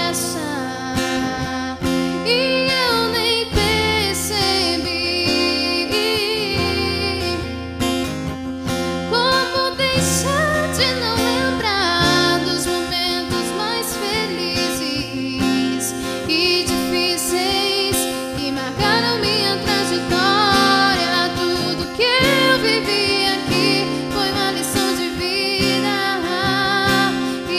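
A song: a singer with vibrato over strummed acoustic guitar and steady low instrumental notes.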